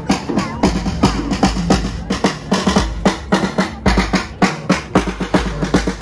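School marching band playing a march, with brass and drums. A steady, even drumbeat runs through it, bass drum and snare included.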